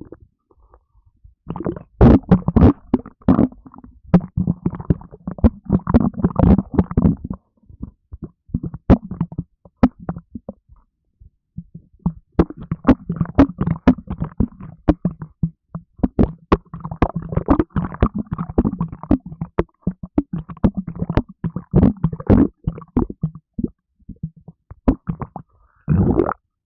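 A person's stomach gurgling and rumbling, close-miked: long bouts of rapid crackling gurgles separated by quieter pauses of a few seconds, with a short burst near the end. The uploader blames gas from a can of Red Bull energy drink.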